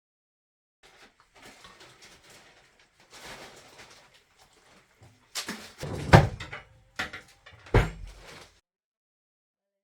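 Light rustling and handling noise, then a few heavy knocks or thuds, the loudest about six seconds in and another near eight seconds. After that the sound cuts off to silence.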